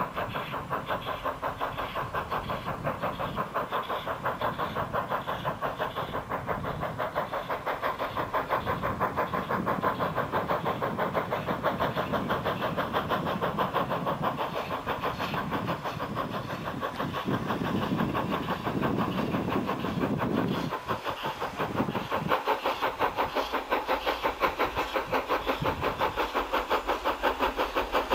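Small steam tank locomotive HC 5 working hard under load, its exhaust chuffing in quick, even beats as it hauls a train. The deeper rumble under the beats falls away about three-quarters of the way through.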